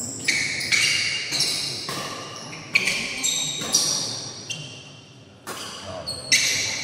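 Badminton rackets striking a shuttlecock in a fast doubles rally: a sharp, ringing ping from the strings with each hit, about every half second to a second.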